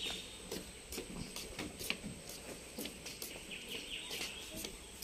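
Forest ambience: birds chirping now and then over a faint steady hiss, with a few light clicks and taps.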